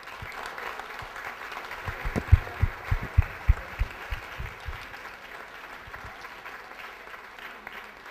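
Audience applauding in a hall. Between about two and five seconds in, a quick run of low thumps, roughly three a second, stands out close by. The applause thins out toward the end.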